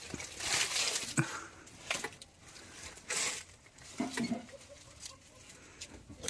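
Dry sal leaves rustling and crinkling in irregular bursts as they are handled at a leaf-bowl press, with a sharp click about a second in.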